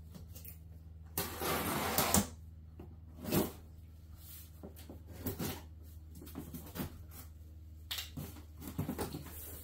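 A pocket knife slitting the packing tape on a cardboard box: a long scraping slice about a second in and a shorter, sharper one about three and a half seconds in, followed by light clicks and cardboard rustles as the knife is handled.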